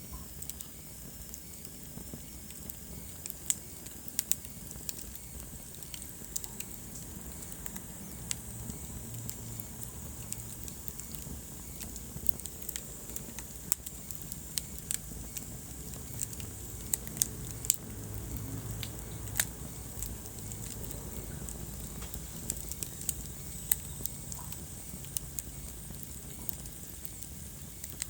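Wood fire burning in a fireplace: a steady low rumble of flame with irregular sharp crackles and pops from the burning logs.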